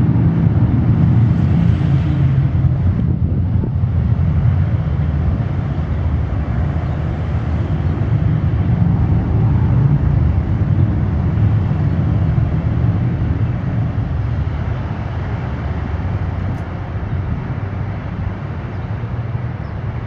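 Wind buffeting the microphone: a loud, steady low rumble that eases a little near the end.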